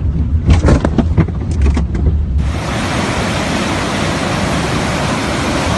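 Several knocks over a low rumble, then, after a cut about two seconds in, the steady rush of floodwater.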